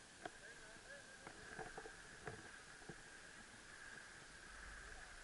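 Near silence: faint, muffled sound of skis sliding on packed snow, with a few light clicks early on. A low rumble comes in about four seconds in.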